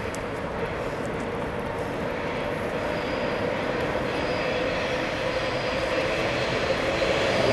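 A steady mechanical drone with a faint held hum, slowly growing louder.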